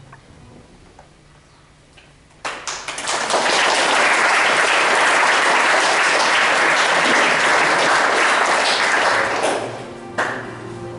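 Audience applauding: a few scattered claps about two and a half seconds in, quickly building into dense applause that holds for about six seconds and then fades, with quiet music underneath.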